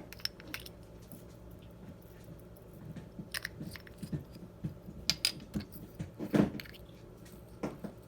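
Small plastic glitter pots being opened and handled: scattered light clicks and taps, coming faster in the second half, with a louder one about six seconds in.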